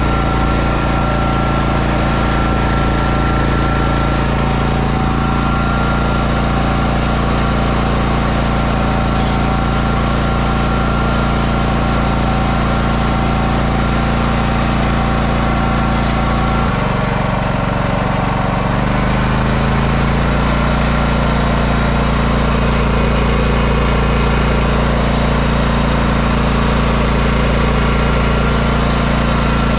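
Champion 100520 inverter generator's engine running steadily, freshly started. About 17 seconds in its note drops, then steps back up over the next couple of seconds before settling again.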